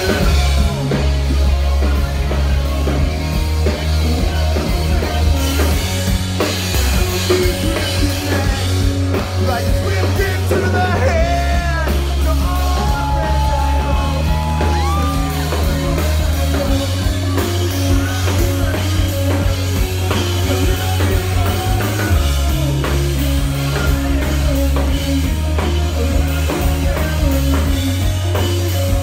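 A rock band playing loud live: drum kit, bass and guitar, with singing and shouting over the music, heard from inside the crowd at the front of the stage.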